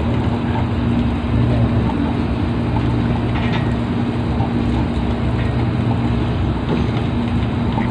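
An engine running steadily with a constant low drone and an unchanging pitch.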